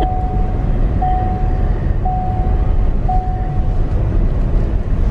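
Inside a moving car: the steady low rumble of the engine and tyres at slow speed, with the car's warning chime sounding four times about a second apart, then stopping.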